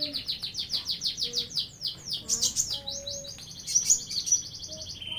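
Domestic canary singing a fast rolling song: quick repeated notes, about ten a second, that change pattern several times and settle into a lower steady trill near the end. The keeper reads its singing as a sign of high breeding drive (birahi tinggi). Faint low whistles from another bird sound underneath.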